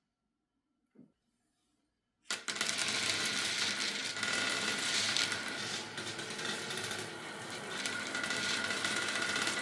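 Near silence, then a little over two seconds in a sudden start of many marbles rolling and clattering along a wooden marble run: a dense, continuous rattle with a faint steady high hum underneath.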